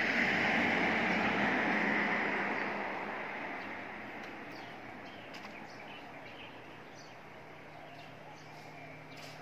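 A road vehicle passing, its rushing noise swelling in the first couple of seconds and then fading away. Faint bird chirps follow.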